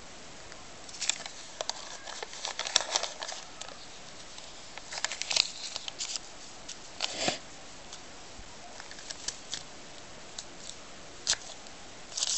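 A rooster-shaped paper craft punch being worked through a sheet of paper: paper rustling and handling with scattered clicks. The loudest click comes about seven seconds in.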